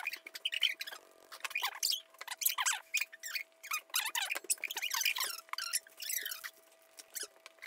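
A metal mesh colander, used as a sifter, is shaken and rubbed against the rim of a stainless steel mixing bowl to sift almond flour and powdered sugar. It makes scratchy metal-on-metal squeaks and rattles in irregular bursts, with short pauses.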